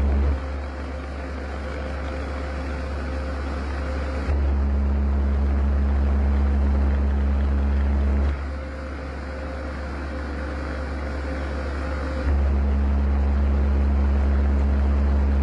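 Analog electronic tone generators of a sound installation sounding a low, loud electric drone with a steady tone above it, switching on and off in a regular cycle about every four seconds. Between the loud blocks a quieter layer with a different, higher steady tone is heard.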